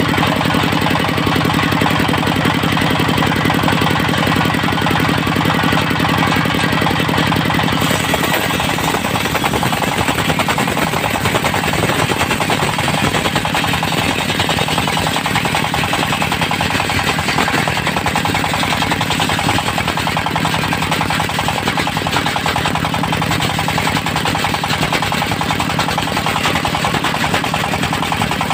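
Diesel-driven mobile circular sawmill running with a fast, even engine beat. About eight seconds in, the engine's note wavers and a harsher hiss joins above it, as the blade works through teak.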